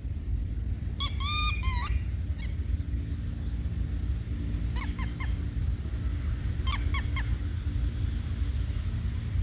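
Adult red-wattled lapwing calling: a quick run of sharp, ringing notes about a second in, then short groups of three or four notes around five and seven seconds, over a steady low rumble.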